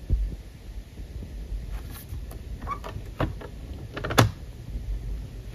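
Paper trimmer's blade carriage sliding along its rail over card stock, with a few clicks and one sharp click about four seconds in. A soft thump comes right at the start.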